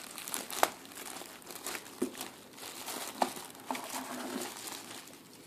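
Thin plastic packaging bag crinkling as it is handled, in irregular rustles with a few sharp crackles, dying down near the end.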